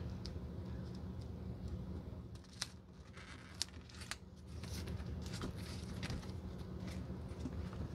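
Nitrile-gloved hands pressing a Birkenstock cork footbed down onto a new rubber sole: soft rubbing and crinkling with a few sharp ticks, over a steady low hum.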